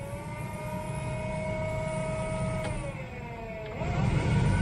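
1978 Chevy Nova's heater fan blower motor running and working. Its whine rises as it spins up and holds steady, drops about three seconds in as it changes speed, then climbs again and gets louder near the end.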